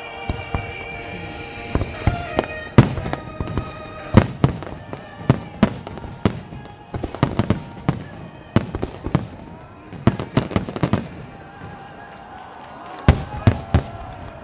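Starmine fireworks: a rapid, irregular series of sharp shell bursts in clusters, with a short lull near the end, over music with held tones.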